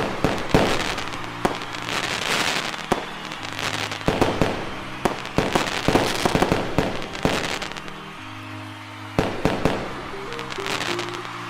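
Fireworks display: a rapid, irregular series of sharp bangs with bursts of crackling, over music with a steady bass line.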